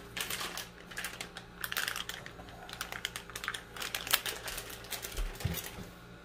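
Crinkling of a plastic bag of shredded mozzarella as it is handled and shaken out, irregular crackles coming and going.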